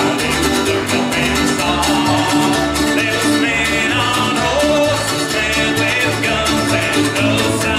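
Bluegrass band playing with fiddle, mandolins, acoustic guitars, banjo and upright bass, the bass keeping a steady beat under the strings.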